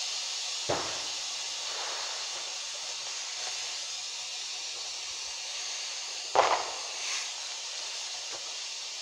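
Red smoke grenade hissing steadily as it pours out smoke. A sharp pop comes about a second in, and a louder crack with a couple of quick pops follows near the end.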